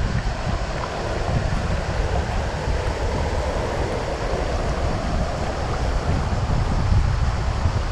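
River water rushing and rippling over a shallow riffle, with wind buffeting the microphone in a low, gusty rumble.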